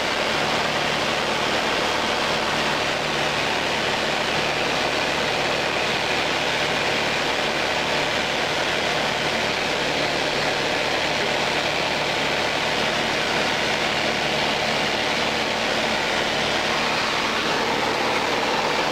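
Light propeller aircraft in flight, heard from inside the cabin: a steady engine drone with a low hum under a constant hiss of rushing air.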